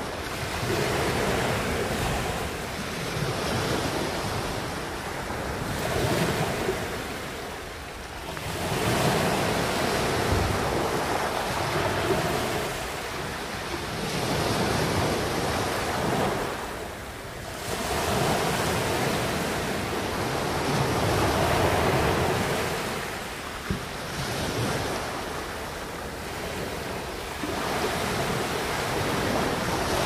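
Small sea waves breaking and washing up the shore. The surf swells and ebbs every few seconds, with brief lulls between sets.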